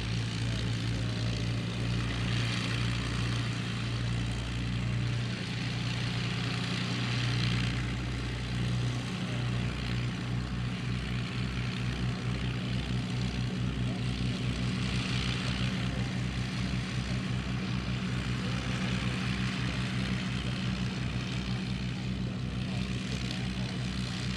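Avro Lancaster's four Rolls-Royce Merlin V12 engines running on the ground: a steady, deep propeller drone that takes on a pulsing beat from about nine seconds in.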